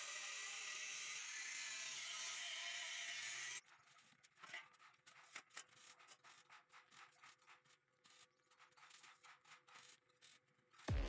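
Electric arc welding on steel tubular railing: a steady sizzling hiss that cuts off suddenly about three and a half seconds in, followed by faint scattered ticks and taps.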